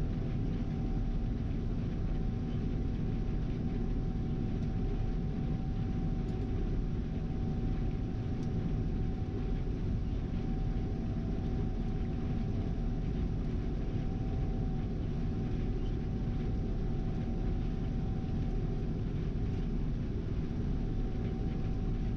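Gleaner R72 combine running steadily while harvesting soybeans: a constant low engine and threshing drone with a thin steady whine over it.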